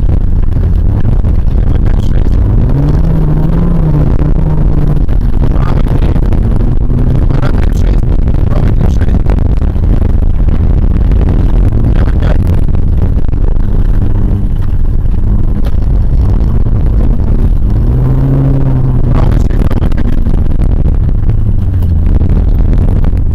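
A VAZ 2114 car driving hard over a bumpy dirt track, heard from inside the cabin: a loud, steady rumble of engine and tyres, with the engine note rising and falling twice. Scattered knocks and clatter come from the body and suspension over the ruts.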